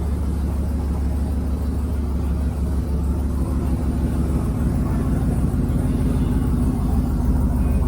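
Turbocharged LS V8 of a 1967 Chevy C50 truck running while the truck is driven, a steady low drone that grows slightly louder.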